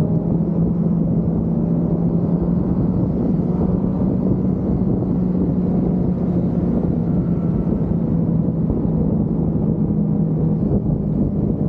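Sport motorcycle engine humming steadily at a constant speed under way, with rushing wind noise underneath.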